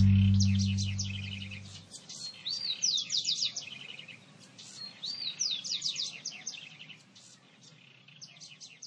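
The song's last held chord fades out over the first two seconds, leaving small songbirds chirping. The same quick phrase of falling notes is sung twice, a few seconds apart, among scattered lighter chirps.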